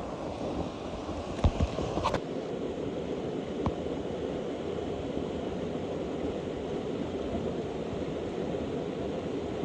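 A mountain stream rushing steadily, with a couple of short knocks about one and a half and two seconds in.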